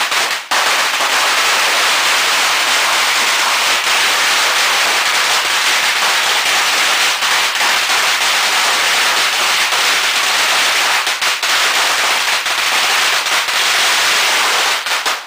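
A 20,000-count roll of red Chinese firecrackers going off in one continuous rapid crackle of bangs, with a brief break just after it starts, then cutting off suddenly near the end.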